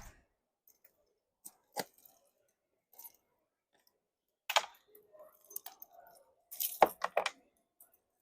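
Scattered clicks and knocks of small hard objects being handled: a few single clicks, then a denser, louder run of knocks and rattles in the second half.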